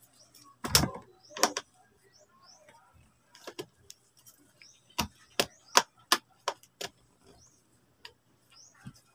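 A screwdriver clicking and knocking against the plastic housing of an electric fan's motor as a screw is worked loose: about ten sharp clicks, with a quick run of them between five and seven seconds in.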